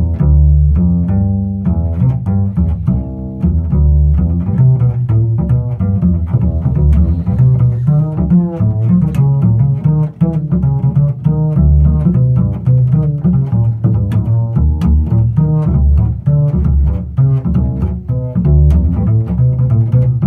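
Double bass played pizzicato: a steady stream of plucked jazz notes, several a second, with a deep, resonant low end.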